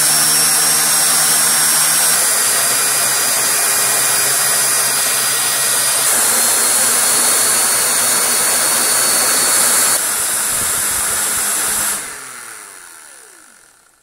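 Dyson cordless stick vacuums (V15 Detect, V10 Animal and others) run one after another on boost mode, each a steady high motor whine over rushing airflow as it drives an air-powered turbo brush, with a low hum beneath. The whine steps lower at each change of machine, and near the end the motor switches off and the sound winds down to silence.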